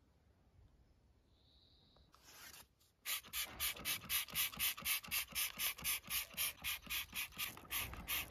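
Hand trigger sprayer being pumped fast, squirting cleaning foam in short, even hisses about four or five a second. A single brief spray comes just after two seconds; the rapid run starts about three seconds in.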